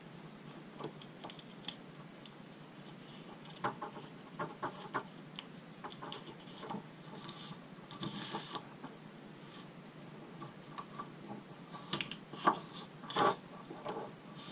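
Hands handling a coax cable strung with taped ferrite beads and sliding heat shrink tubing along it: scattered light clicks and taps, a short scraping rustle about eight seconds in, and a few louder knocks near the end.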